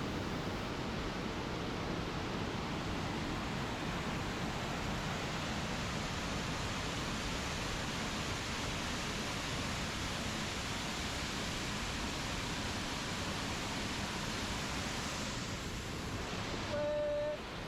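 Steady, even rush of a waterfall. Near the end, a short pitched sound is heard over it.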